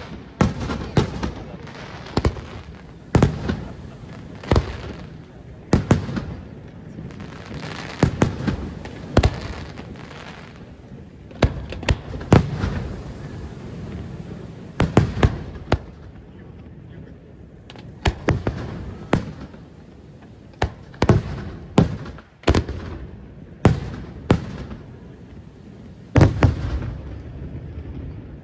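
Aerial firework shells bursting one after another, sharp bangs every second or so, each trailing off in a rumbling echo.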